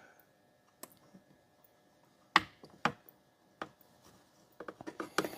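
Scattered light clicks and taps of a hand tool and plastic chainsaw parts as the impulse line is worked onto its fitting. There is a sharper click about halfway through and a quick run of clicks near the end.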